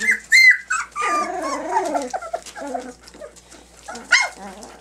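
Three-week-old puppies whimpering and yelping in distress: a sharp high squeal near the start and another near the end, with a longer wavering whine between them.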